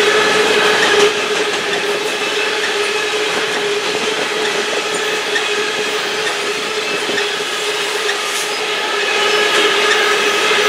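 Loaded covered hopper cars of a long freight train rolling past at track speed: steady steel-wheel-on-rail noise with a continuous tone running through it.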